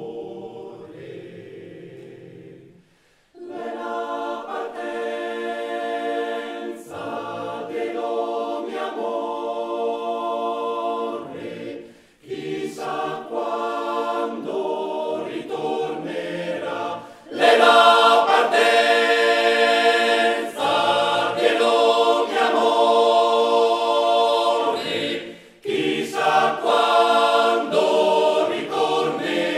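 Male-voice choir singing a cappella, in phrases separated by short breaks. The singing swells to its loudest a little past halfway.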